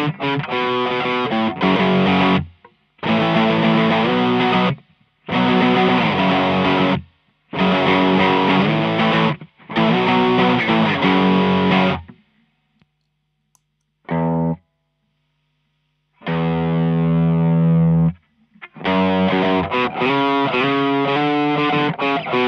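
Gibson Les Paul humbucker electric guitar played through a Tube Screamer-type overdrive pedal into a Fender Blues Deluxe amp: five short overdriven chord phrases with brief breaks, first through a Visual Sound Route 808. After a pause about halfway, with only a faint amp hum and a short stab, the guitar plays a held chord and more phrases through a Maxon OD808.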